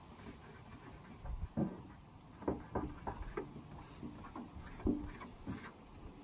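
Irregular soft crinkles and taps as a vinyl sticker is peeled from its backing and pressed down by hand onto a van's rear door, in scattered bursts starting about a second in.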